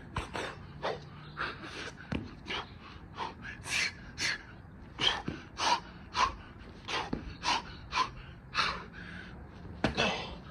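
A man breathing hard and gasping during a burpee workout, about two heavy breaths a second. A few dull thuds come from his hands and feet landing on the wooden deck.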